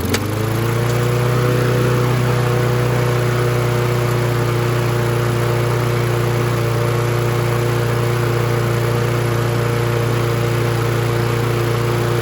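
Kohler XT675 single-cylinder lawnmower engine on a Toro walk-behind mower, running at a steady speed just after being drill-started. This is its first run after the carburetor and fuel tank were cleaned, with the engine running without its air filter cover.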